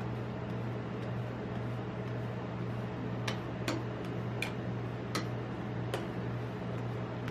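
Metal spatulas scraping and tapping on a steel rolled-ice-cream cold plate while spreading a sheet of ice cream, with about five sharp clicks in the second half. A steady low hum runs underneath.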